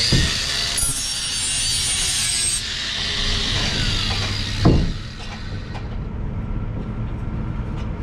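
Angle grinder sharpening the steel edge of a new brick trowel: a harsh, steady grinding hiss for about four and a half seconds, then a single knock, and quieter noise as the grinding stops.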